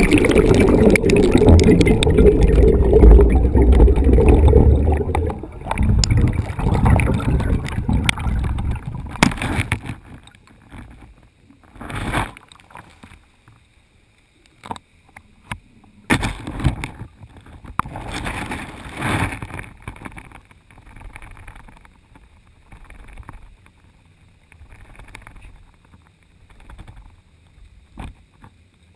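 Muffled rushing and rumbling of water against an underwater camera housing as it sinks on a line. It is loud for the first several seconds, fades out about ten seconds in, and then gives way to occasional knocks and scrapes from the rig.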